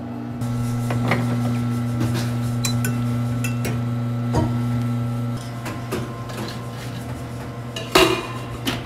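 Commercial espresso machine humming steadily while a shot is pulled, with light metal clinks from the portafilter and steel pitchers. Part of the hum drops away about five seconds in, and there is a sharp metal clank near the end.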